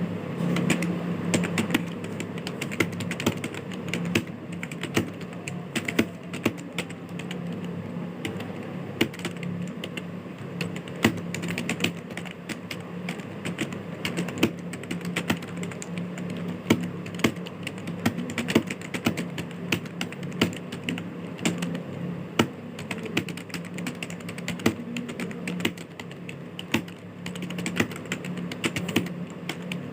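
Computer keyboard being typed on quickly and continuously, with dense, irregular key clicks, during a Hindi typing-speed test.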